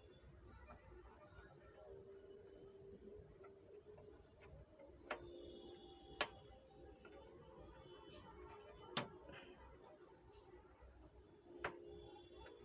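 Near silence with faint, steady, high-pitched cricket chirring in the background and four light, sharp clicks spread through it.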